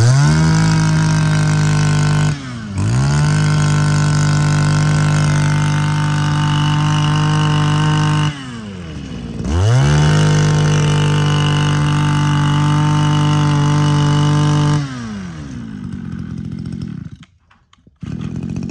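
Mitsubishi TL20 20 cc two-stroke brush-cutter engine revved up to a high steady whine three times, each rev dropping back to idle, the last time about fifteen seconds in.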